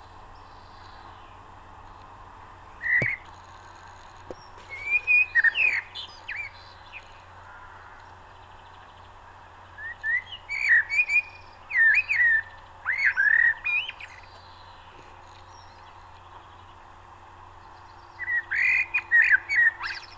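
Birds chirping in several bouts of short, quick, sliding calls, over a steady background hiss.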